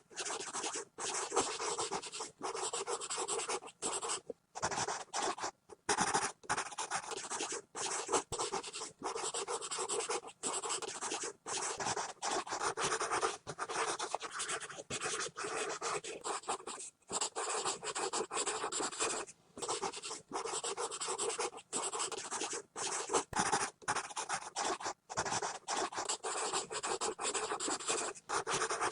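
Pencil scribbling quickly on paper: continuous rasping strokes, broken every second or so by brief gaps where the lead lifts off the page.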